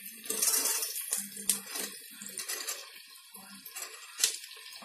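Chopped bottle gourd tipped into hot oil and fried onions in a pressure cooker: a soft sizzle, with a few sharp clicks of the pieces and the spatula against the pot.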